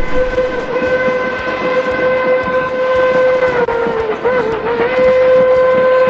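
Narrow-gauge steam locomotive's whistle blowing one long blast. A little past halfway its pitch sags and wavers for about a second, then it steadies again and is still sounding at the end.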